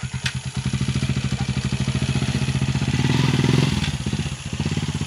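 A vehicle's engine running with a rapid, even pulse as it pulls away, rising in revs to its loudest about three and a half seconds in, dropping off sharply just after four seconds, then picking up again.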